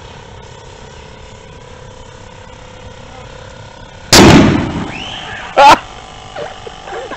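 Over-inflated basketball bursting with a single, very loud bang about four seconds in, its echo dying away over about a second. A second short, loud sound follows about a second and a half later. Before the bang there is only a steady faint hum.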